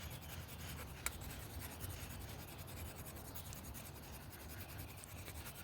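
Sandpaper rubbed by hand over the spin clutch of a classic Kenmore top-load washer: a faint, fast scratching rub, with a single click about a second in. The sanding takes down ridges worn into the clutch from running crooked.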